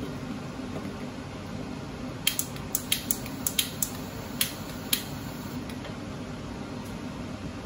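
Onion-and-milk curry sauce simmering in a carbon-steel wok over a gas burner, a steady low rumble. A quick run of about ten sharp clicks comes between about two and five seconds in.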